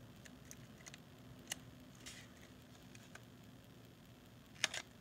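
Faint scattered ticks and scratches of a tiny X-Acto knife cutting tape on a circuit board. A sharper double click comes near the end.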